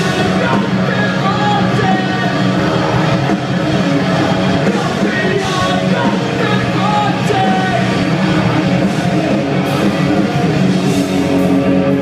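Pop-punk band playing live and loud through a festival PA: electric guitars, drums and sung, partly shouted vocals, heard from within the crowd.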